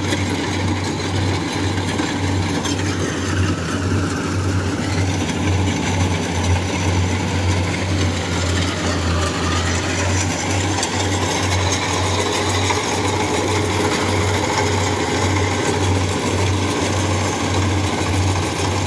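Kubota rice combine harvester's diesel engine and threshing machinery running steadily under load as it cuts lodged rice, a low pulsing engine drone with dense mechanical noise over it.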